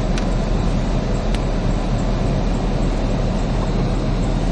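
Steady cabin noise of the idling Dodge Charger Pursuit with its climate-control blower running on max AC, a continuous rush over a low engine rumble. A couple of faint clicks come in the first second and a half.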